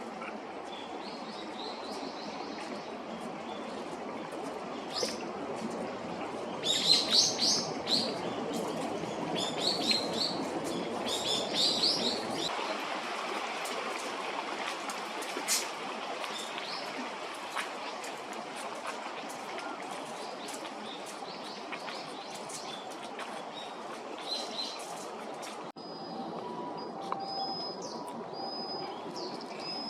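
Common sandpiper giving high, thin piping calls in short runs of quick notes, over a steady background hiss.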